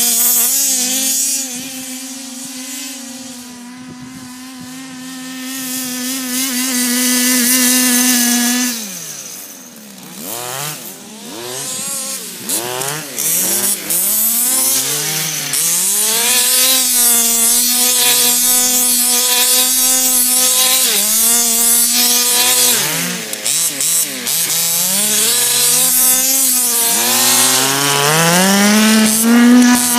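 Small two-stroke petrol engine of a large-scale Baja RC buggy running at high revs, its note fading and returning as the car drives away and back. From about nine seconds in the throttle is blipped over and over so the pitch rises and falls, then it holds steady before revving up again near the end.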